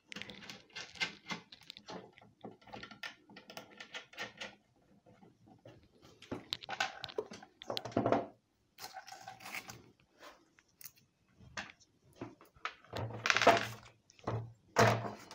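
Small metal clicks and scrapes of skateboard truck hardware, as nuts are threaded onto the mounting bolts and turned with a screwdriver. A few louder knocks come near the end as parts and tools are handled on the table.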